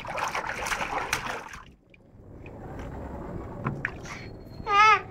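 Water splashing for the first couple of seconds, then softer sloshing with a few clicks. Near the end a baby starts to cry, loud and wavering.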